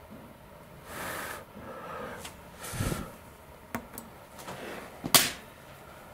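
Small tools being handled at a soldering job: a short hiss about a second in, light clicks, and a sharp clack about five seconds in as the soldering iron and metal forceps are lifted away from the wires.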